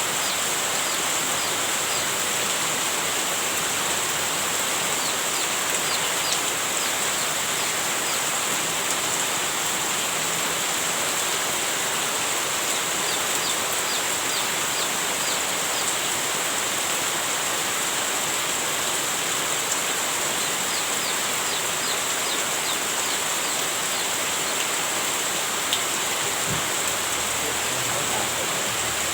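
Heavy rain falling steadily, a dense even hiss of water, with faint short high chirps scattered through it.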